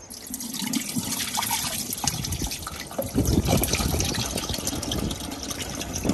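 Water running into a bowl of diced cocoyam to rinse them, with heavier splashing and sloshing from about halfway through.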